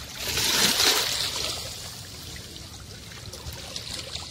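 Sea water washing and trickling among shoreline rocks, with a louder rush in the first second or so that then settles into a steady low wash.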